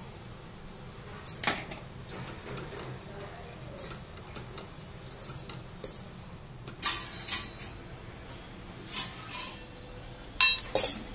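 A steel spoon scraping and clinking against a stainless steel pan while poha is stirred, with sharp clinks scattered through, the loudest a pair about seven seconds in and another pair near the end.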